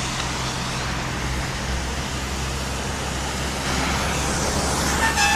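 Heavy Ford truck engine rumbling steadily over road noise. A horn starts sounding near the end.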